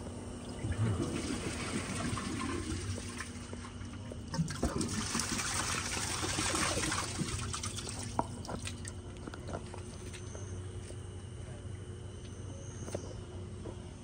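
1937 Standard Madbrook toilet flushing. Water rushes into the bowl from about a second in, is loudest around five to seven seconds in, and dies away about eight seconds in.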